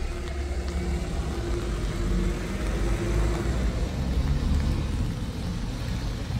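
Low rumble of a motor vehicle engine running out of sight, with a faint hum in it, over a steady hiss of rain on a wet street.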